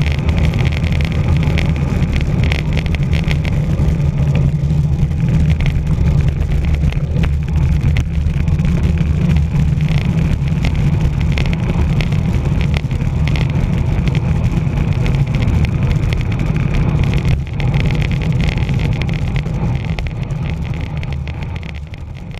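Wind buffeting a bike-mounted camera's microphone on a fast bicycle descent: a steady, loud rumble of rushing air with road noise, fading out near the end.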